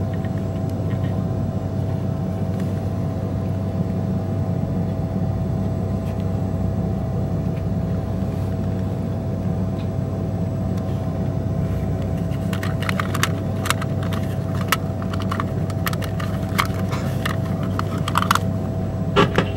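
Steady cabin drone of a Tupolev Tu-134B-3 airliner on the ground before takeoff: a low hum with a steady whine over it. From about twelve seconds in comes a run of sharp clicks and rattles.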